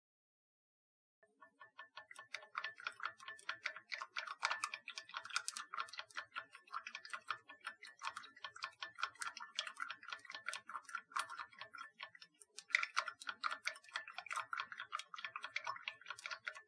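Thin wooden stick stirring beef bouillon cubes into water in a glass gravy boat, clicking rapidly and unevenly against the glass; starts about a second in.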